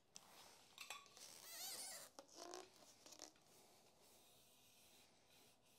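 Faint handling noises: rustling and a few light clicks over the first three seconds, with a short wavering squeak partway through, then near silence.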